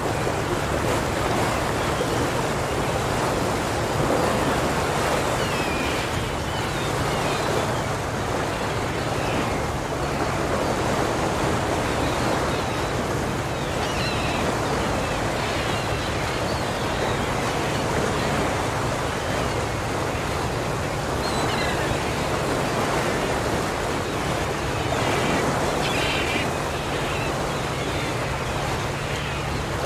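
A steady wash of surf-like water noise, with a low steady hum beneath it and a few faint short high chirps now and then.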